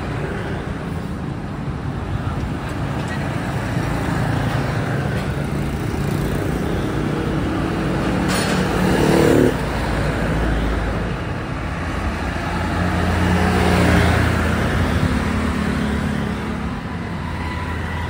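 Street traffic going past, vehicles swelling and fading. About eight seconds in comes a short, louder mechanical burst that cuts off abruptly.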